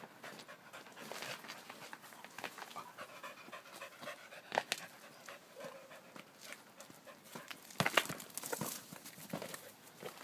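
Corgi panting rapidly, with a few sharp knocks about halfway through and again near the end.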